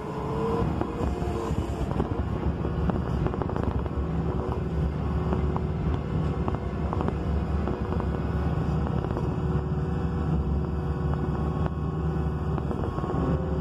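Wheel loader's diesel engine running steadily under load, heard from the operator's cab, with frequent small clanks and rattles from the machine as it travels over the dirt with its bucket lowered to level the road.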